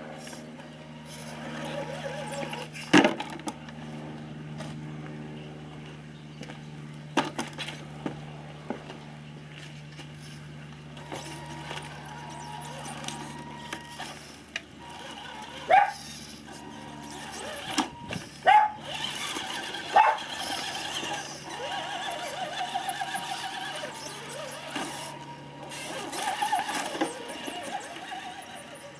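Radio-controlled Axial SCX10 rock crawler's electric motor and gears whirring at crawling speed, with several sharp knocks and scrapes as its tyres and chassis strike the concrete step and the board it climbs over.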